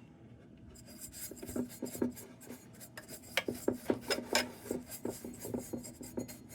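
Hand scraping and rubbing on a metal lantern part in short, irregular strokes with small clicks, starting about a second in.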